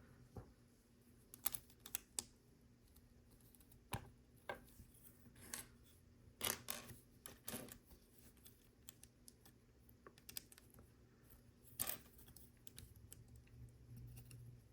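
Faint, irregular clicks and taps of plastic Lego pieces being handled and pressed together, about a dozen over the stretch, with the loudest near the middle and again toward the end.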